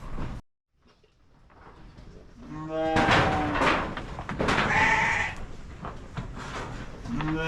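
Dopper sheep bleating: three long calls, the middle one higher, with knocking and rustling from the flock between them. The sound drops out briefly about half a second in.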